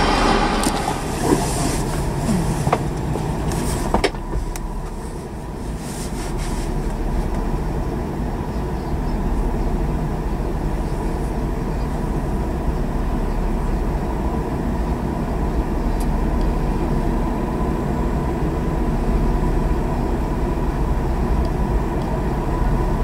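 Steady low rumble of a train on the line, with a few sharp clicks in the first four seconds.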